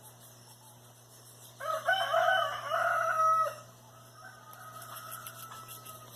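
A rooster crows once, a loud call of about two seconds starting a second and a half in, followed by a fainter, drawn-out call.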